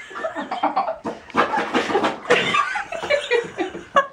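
People laughing and chuckling in short, broken bursts.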